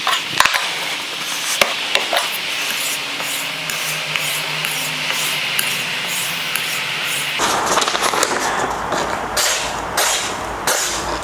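Steel knife blade scraping, with scattered sharp clicks; about seven seconds in the scraping turns fuller and rougher, in repeated strokes.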